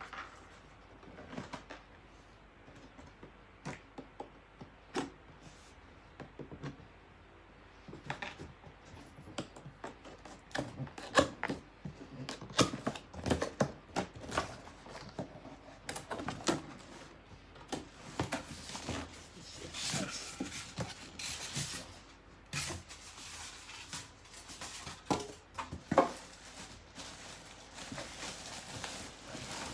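A large cardboard box being opened by hand: scattered clicks and knocks as the tape is worked at, then over the second half denser scraping and rustling as the flaps are pulled open.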